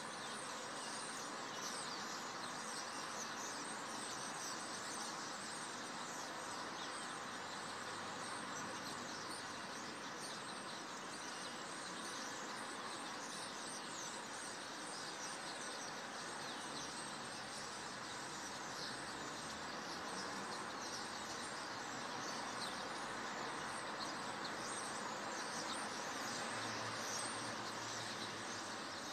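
Outdoor ambience at dusk: a steady wash of background noise with many faint, short chirps scattered throughout.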